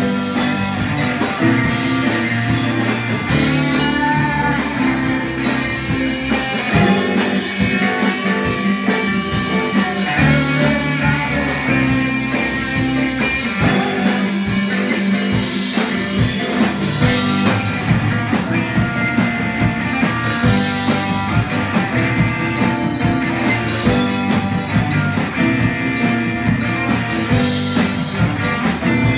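Live rock band playing an instrumental passage: electric guitars, keyboards and a drum kit keeping a steady beat.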